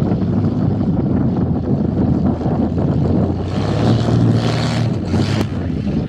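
Engine and propeller of a modified Cessna 170B taildragger on a short landing, a steady drone mixed with heavy wind rumble on the microphone. The propeller hiss swells for about two seconds past the middle as the plane passes closest and settles onto the runway.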